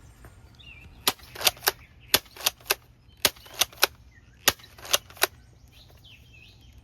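Salt guns firing: about a dozen sharp, snapping cracks in quick clusters of two or three, with one more near the end.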